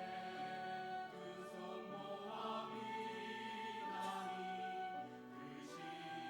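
A group of voices singing a gospel hymn together over instrumental accompaniment, with long held notes.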